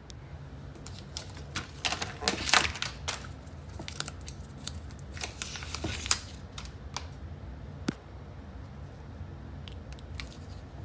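Handling noise from unboxing a Boosted Stealth electric longboard: irregular clicks, scrapes and rustles as hands move the board and its packaging, with the loudest cluster about two seconds in.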